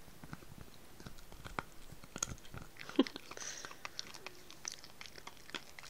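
Small dog gnawing a hard rice bone chew, her teeth making irregular clicks and crunches against it, one sharper crack about three seconds in.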